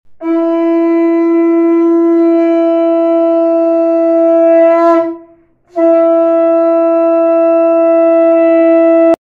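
Conch shell (shankha) blown for a Hindu puja: two long steady blasts on one note, the first about five seconds, the second after a short breath about three and a half seconds, ending abruptly.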